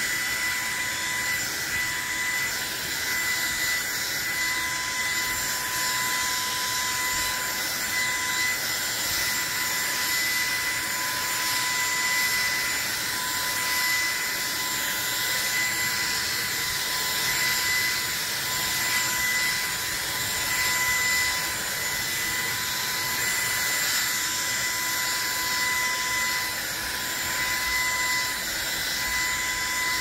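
A EUROTO 300 W cordless stick vacuum running steadily: a high, even motor whine over the rush of air through the brush head as it sweeps a fabric sofa cover.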